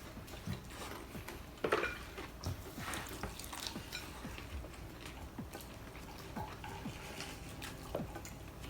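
Light clicks and scrapes of people eating at a table: cutlery and food containers being handled, with a louder knock a little before two seconds in.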